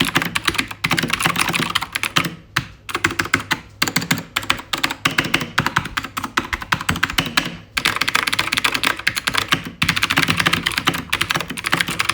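Fast typing on a Keychron K2 V2 mechanical keyboard with blue clicky switches: a rapid stream of sharp key clicks in runs of a few seconds with brief pauses between them. The clicking is loud, typical of blue switches, which make a lot of noise.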